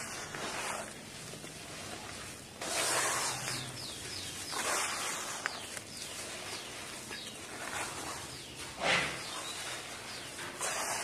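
Hands squelching and kneading a wet red dirt paste in a plastic basin, in uneven strokes, with the loudest squish about nine seconds in.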